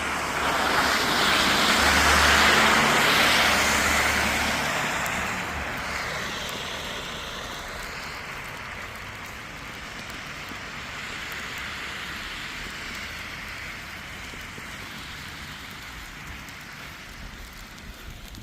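A motor vehicle passing, its engine hum and rushing noise loudest a few seconds in, then fading to a steadier, quieter rush.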